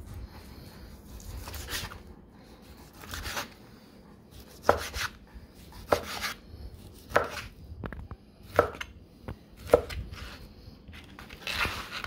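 Chef's knife slicing a grilled porterhouse steak, each stroke ending in a knock of the blade on the cutting board. There are about eight strokes, a little over a second apart.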